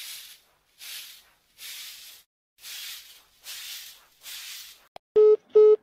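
Six short hissing bursts, about one a second and each lasting about half a second, followed about five seconds in by two loud, short beeps on a low steady tone.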